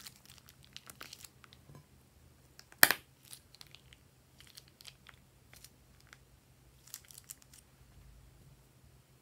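Plastic piping bag crinkling as it is squeezed and moved, with scattered soft crackles and clicks from slime piped into a glass bowl. One sharp, loud crack stands out about three seconds in.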